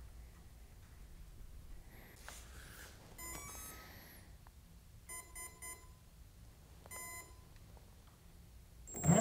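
Brushless ESC's electronic beep tones sounded through the rewound drill-press motor's windings as the controller arms: one tone, then three short beeps, then a single beep. Near the end the motor starts turning, with a whine that rises fast in pitch as it spins up on its first run.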